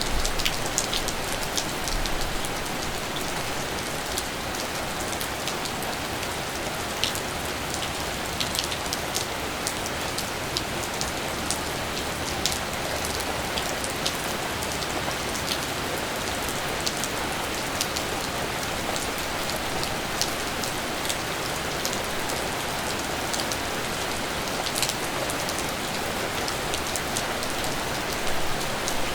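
Steady rain falling, an even hiss with many scattered individual drops ticking on a surface.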